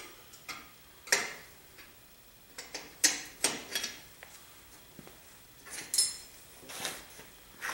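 Scattered metal clinks and taps from a combination wrench and loose bolts being handled while bolts come out of the compressor's finned cylinder head. One clink about six seconds in rings briefly.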